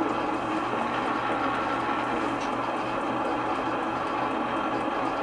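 Radio Shack DX-302 shortwave receiver hissing steady static through its speaker, with a low hum underneath and no station coming through.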